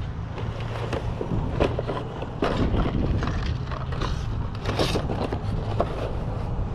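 Cardboard model-kit boxes being handled and shuffled in a cardboard box: a few short scrapes and knocks of cardboard on cardboard, over a steady low rumble.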